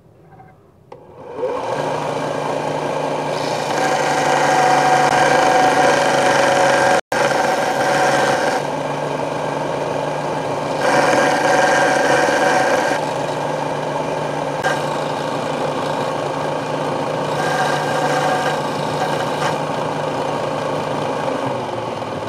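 ALLWIN Grind Force belt sander running with a steady motor hum while a small metal washer is ground against the abrasive belt. The grinding gets louder and harsher in three stretches, each time the piece is pressed harder to the belt.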